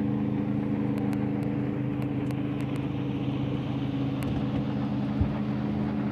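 Motorboat engine running steadily at an even pitch as a boat comes down the river, with a few light clicks and a brief low thump about five seconds in.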